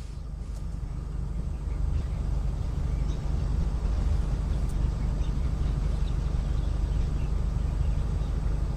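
A vehicle engine running steadily, a low rumble that builds over the first two seconds and then holds, with a few faint high chirps above it.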